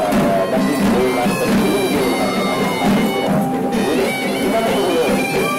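Live procession music: traditional drums with a shrill reed pipe playing a melody of held notes.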